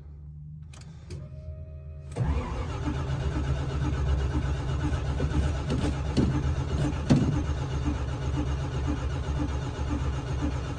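Oldsmobile Cutlass engine being cranked by the starter: after a low hum, the starter engages about two seconds in and cranks continuously with uneven pulses as the engine only wants to fire a little and does not catch. A cold engine that hasn't been started in a while.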